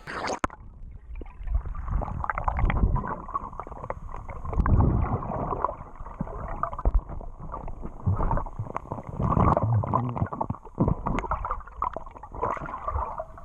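Water heard from a camera held under the sea: muffled, uneven surges and rumbles of moving water. A sharp hit right at the start, and a faint steady high whine underneath.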